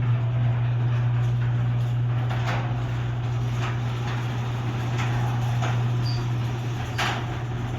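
Garage door opener motor running with a steady low hum as the door travels open, with scattered clicks and clanks from the moving door.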